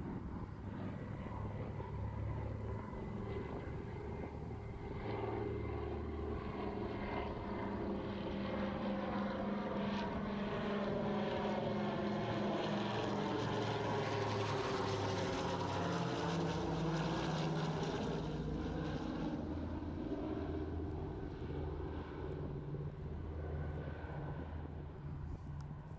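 Douglas C-53 Skytrooper's twin Pratt & Whitney R-1830 Twin Wasp radial engines and propellers droning in a flypast. The sound grows louder to a peak near the middle, and the engine pitch drops as the aircraft passes, then fades slightly toward the end.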